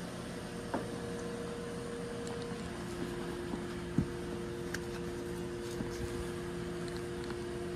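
Steady engine and road hum inside a moving car, with two held tones in it that shift about three seconds in, and a few faint clicks.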